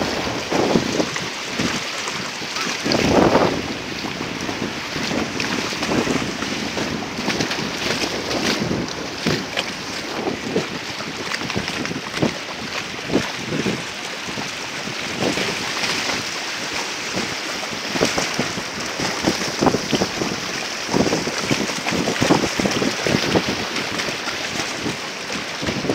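Wind buffeting the microphone over rushing shallow surf, with boxer dogs splashing as they run through the water.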